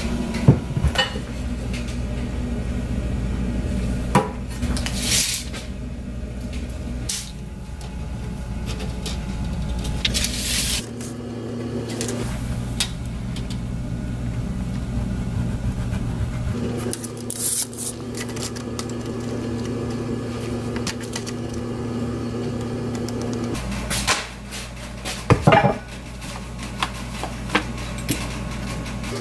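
Scattered knocks and clinks of wooden boards and hand tools being handled and set down on a workbench, over a steady low hum.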